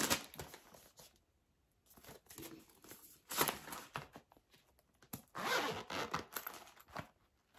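Packaging of a makeup brush set being torn and unwrapped by hand, in three short bursts of rustling and tearing.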